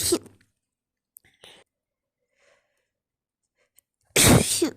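A woman sneezing in a fit of snotty sneezes: the tail of one sneeze at the start, a short breath in the middle, then another loud sneeze about four seconds in.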